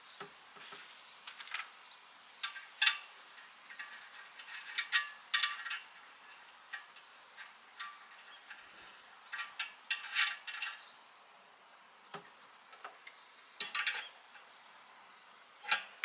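Small brass fittings clicking and clinking against a metal radiator as they are screwed in by hand: irregular light metallic taps with brief ringing, the sharpest about three seconds in, and further clusters around five, ten and fourteen seconds.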